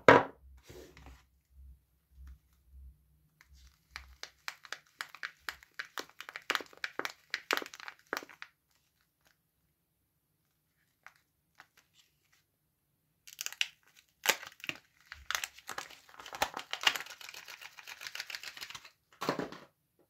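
A bar of soap knocks down onto a wooden tabletop, then the paper wrapper of a soap bar is crinkled and torn open by hand in two spells of rapid crackling with a pause between.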